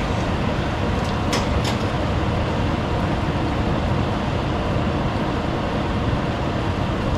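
Steady sizzle of food deep-frying in a skillet of hot oil, under the steady run of an over-the-range microwave's vent fan. Two light clicks come about a second and a half in.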